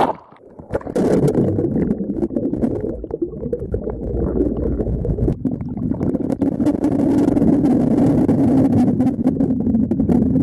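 Muffled underwater rushing of water past the submerged camera, with the fishing boat's engine and propeller humming through the water. The hum grows steadier and louder from about halfway in.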